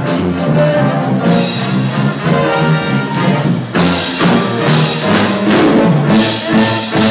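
A brass band playing live: saxophone, trumpets and a sousaphone carrying a stepping bass line, with percussion keeping the beat.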